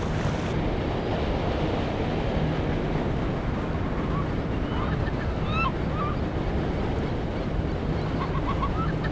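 Sea surf breaking on a beach, a steady rushing noise, with wind on the microphone. Birds give short high calls from about four seconds in and again near the end.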